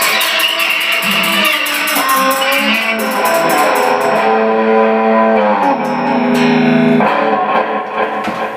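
Violin and guitar playing the last bars of a song, ending on long held notes.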